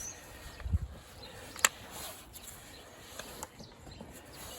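Quiet handling around a car battery in an engine bay: a soft low bump, then a single sharp click about a second and a half in, and a few faint ticks later.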